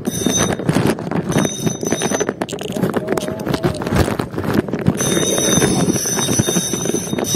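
Spinning reel's drag buzzing as a hooked Spanish mackerel pulls line off, in two runs: over the first two seconds or so, and again from about five seconds in. Hands knocking and rubbing on the reel and camera throughout.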